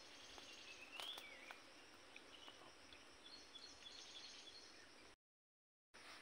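Near silence: faint outdoor ambience with small bird chirps, including a short whistle that rises then falls about a second in. The sound cuts out completely for a moment near the end.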